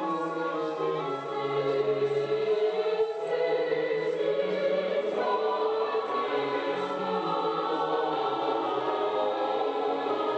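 Classical choral music with a choir singing over orchestral backing, played from a cassette on a Pioneer CT-F850 tape deck freshly fitted with new drive belts. This is the deck's first test playback after the belt replacement.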